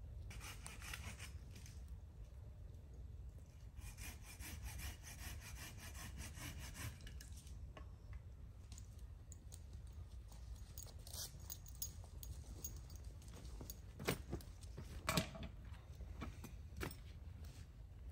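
Footsteps of a person and a dog crunching and rustling through dry fallen leaves, with a few sharp clicks near the end.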